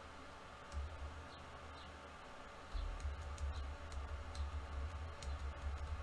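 A few faint, scattered key clicks from a HyperX Alloy Core RGB membrane keyboard as its keys are pressed to cycle the lighting modes, with a low rumble underneath from about halfway through.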